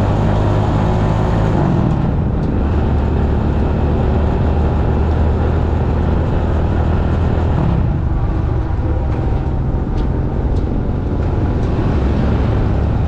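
Rusi Classic 250 motorcycle engine running steadily under way, heard from the handlebars, its note dropping a little about two seconds in.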